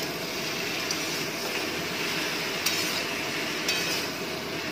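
Malabar spinach greens and stems sizzling in oil in a metal karai as they are turned with metal tongs, with a couple of clinks of the tongs against the pan past the middle.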